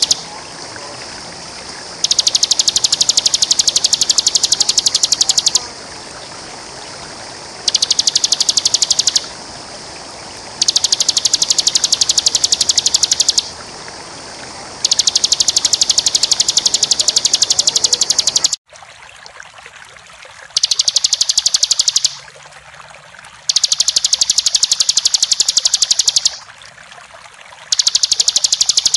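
Bar-winged prinia (ciblek) singing its fast, buzzing trill of rapidly repeated high notes in bouts of two to four seconds, with short pauses between them. A steady rush of flowing water sits beneath the song and drops away abruptly about two thirds of the way in.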